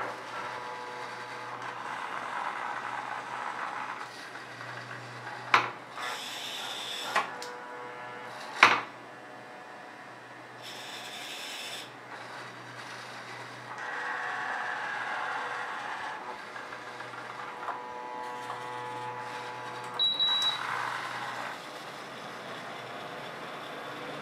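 Servo motors of a small robotic arm whining in stretches as it swings, lifts and tips a plastic ingredient cup over a saucepan. Three sharp knocks come between about five and nine seconds in, as the gripper handles the cup.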